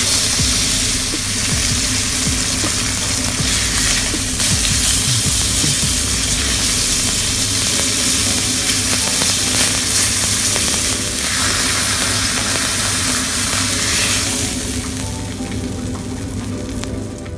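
Beef steak sizzling steadily as it sears in hot oil in a wok.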